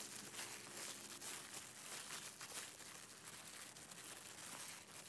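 Faint crinkling of a plastic bag worn as a glove, as a hand presses steamed sticky rice tightly into a small round plastic lid used as a mould.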